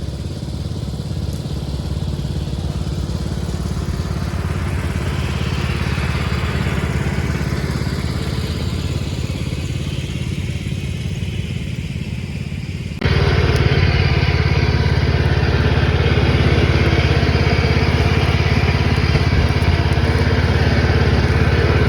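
Cub Cadet garden tractor's small engine running steadily while it drags a load of tree branches. About thirteen seconds in, the sound jumps abruptly to a louder, busier stretch of the same engine running.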